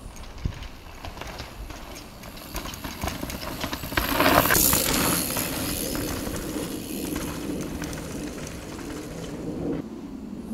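Mountain bike riding fast down a dirt trail: tyres rolling and the bike rattling with many small knocks over bumps and roots, with wind rushing on the microphone. The rush gets louder about four seconds in, then eases.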